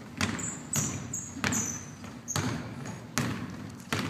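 A basketball being dribbled on a hardwood gym floor in a slow, steady rhythm, about six bounces, each echoing in the gym. Short high squeaks, typical of sneakers on the floor, come between the first few bounces.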